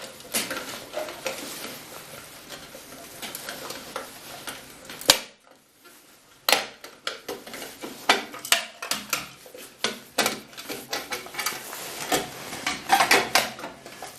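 Irregular clicks, light knocks and rattles of hard plastic and metal being handled as a circuit board is pushed out past its plastic retaining clips, with one sharper knock about five seconds in.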